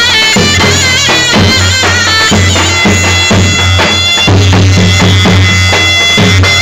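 Davul bass drum beating out a steady rhythm under a shrill zurna playing an ornamented folk melody full of trills and bends, loud throughout.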